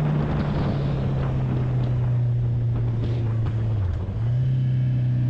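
Inline-four sport motorcycle engine running at steady road-speed revs under a rush of wind noise. About four seconds in the engine note dips briefly and then comes back up to the same pitch.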